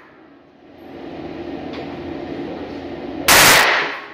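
A single gunshot from a small handgun about three seconds in, sharp and followed by a short echo off the concrete of an indoor range. The echo of a previous shot is dying away at the start.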